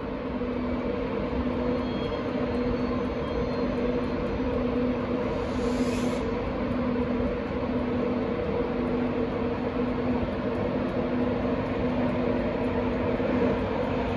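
Class 91 electric locomotive moving slowly along the platform with a steady electric hum: two tones that hold their pitch over a noisy rumble. A short hiss about five seconds in.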